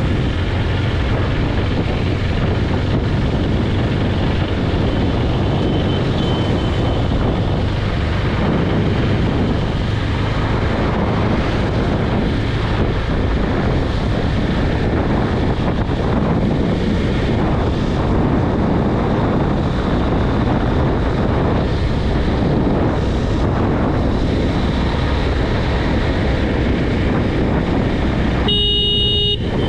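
Steady wind rush on the microphone over the low running drone of a KTM Duke 390's single-cylinder engine, heard while riding at speed. A short, high pitched tone sounds near the end.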